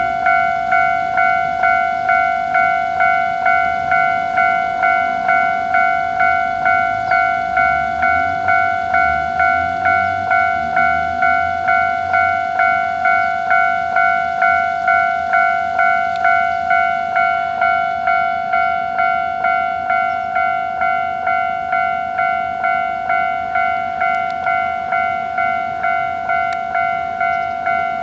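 Japanese railway level-crossing warning bell ringing steadily, about one and a half strikes a second, a ringing tone struck over and over: the crossing's alarm for an approaching train.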